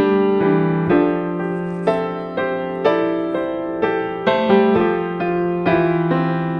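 Piano music: a slow melody of struck notes and chords, each starting sharply and fading, about two a second.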